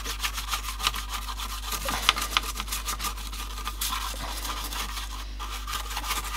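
Small brush scrubbing the slotted plastic grille of a 1960s HMV Sprite transistor radio's case with cleaning solution, in rapid back-and-forth scratchy strokes.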